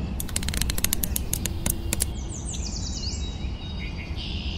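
Birds chirping, a string of quick high downward-sweeping chirps in the middle, over a low steady rumble. A fast run of sharp clicks comes in the first two seconds.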